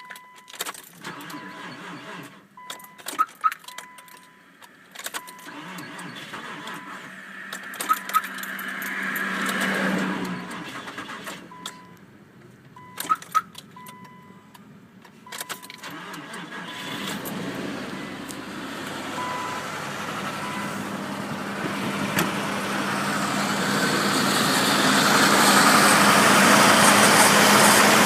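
Keys jangling and clicking with short repeated electronic beeps, then the supercharged 3.3 L V6 (VG33ER) of a 2002 Nissan Xterra starts and runs, growing steadily louder over the last ten seconds or so.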